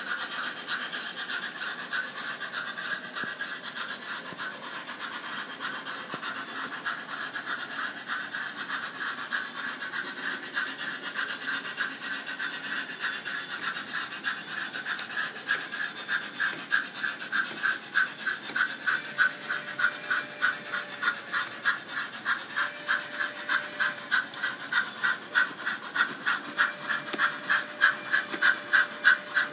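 Model 4-4-0 steam locomotive running on the layout with a steady rhythmic chuffing at about four beats a second, growing louder as the locomotive comes closer.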